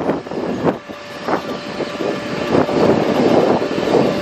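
A motor running, with a steady whine that sets in about half a second in, under uneven rushing noise.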